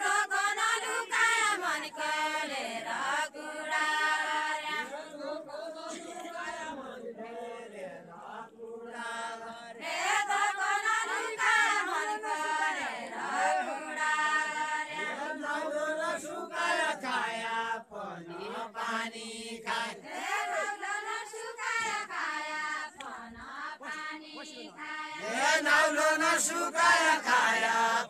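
A group of women singing a Deuda folk song of far-western Nepal together, in phrases of long held, gliding notes with short breaks between them. The last phrase near the end is louder.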